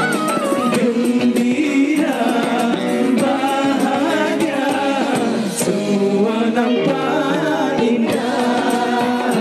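Live band music: a wavering melody line over a steady percussion beat.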